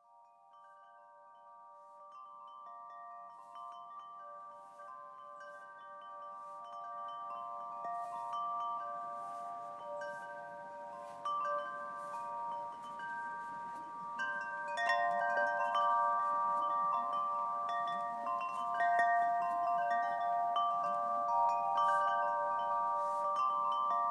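Wind chimes ringing: many overlapping, long-sustaining tones struck at irregular moments, fading in from silence and growing gradually louder.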